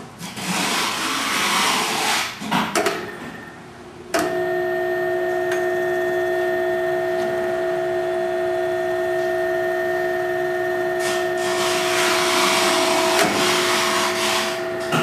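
A rushing noise for about two seconds, then about four seconds in the motor of a Grizzly G0521 self-reversing drill press starts and runs with a steady hum. It is driving a multiple-spindle head that taps three 10-32 holes at once at about 250 RPM, with more rushing noise over the hum near the end.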